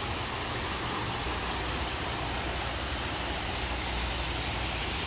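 Steady rush of water from an artificial rock waterfall pouring into an indoor pond, over a low steady hum.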